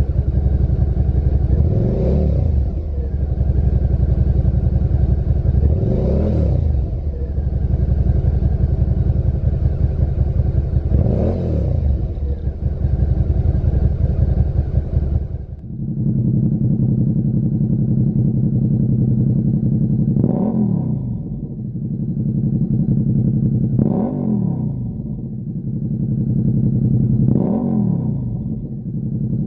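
Suzuki SV650's 645 cc V-twin idling and blipped three times through its stock silencer. After a cut about halfway, it idles and is blipped three more times through a Lextek MP4 stainless aftermarket silencer. Each blip is a brief rise and fall in engine pitch.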